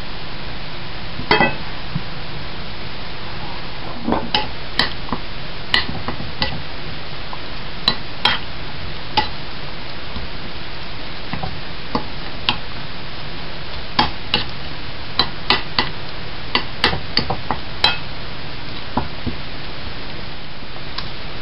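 Metal spoon stirring raw minced meat with egg yolk and onion in a ceramic bowl, with irregular clinks and taps of the spoon against the bowl over a steady hiss.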